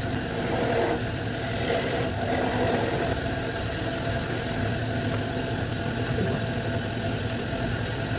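Wood lathe running steadily with green wood on it, a constant motor hum. A rougher, louder noise rises over the hum in the first three seconds.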